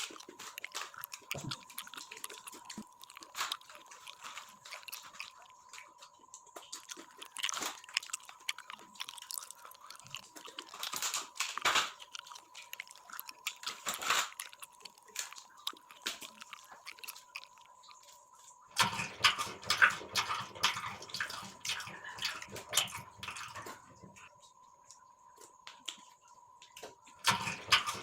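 Close-up mouth sounds of a person eating: chewing and biting with many short, irregular clicks. About two-thirds through, a louder, denser stretch of noise lasts around five seconds. A faint steady high tone runs underneath.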